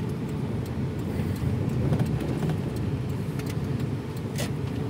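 A car driving along slowly, its engine and tyres making a steady low rumble, with a brief tick near the end.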